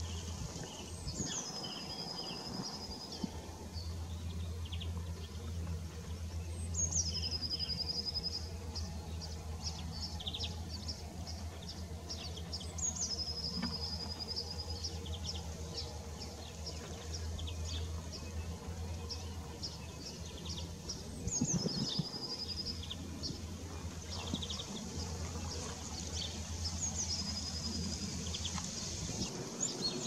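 European greenfinch calling: a high note that drops quickly, then holds level for about a second, repeated roughly every six seconds, with quick ticking notes in between. A steady low hum runs underneath.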